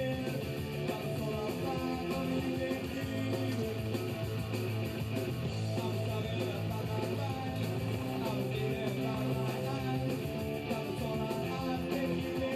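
Rock music with guitar, running steadily throughout.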